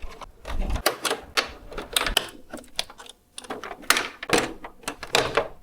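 A run of irregular sharp clicks and knocks, a dozen or so, like rapid tapping, with a brief pause a little past the middle.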